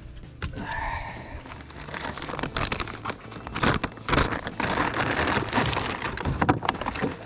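Plastic packaging crinkling and rustling in irregular crackly bursts as it is handled.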